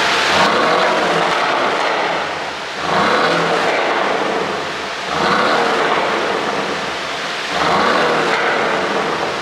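Porsche 718 Boxster's turbocharged 2.0-litre flat-four revved four times, about every two and a half seconds, each rise in pitch followed by a stretch of crackling and popping from the exhaust. The pops come from an ECU tune made to produce them.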